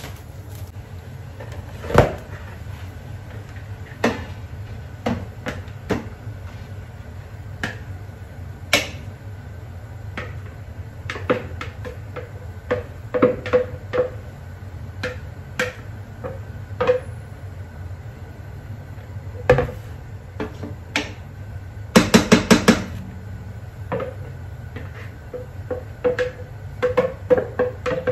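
Kitchen handling sounds: scattered clicks and knocks of a plastic container against a stainless couscoussier while couscous grains are tipped into the steamer basket. A quick run of about six taps comes a little after twenty seconds in, over a steady low hum.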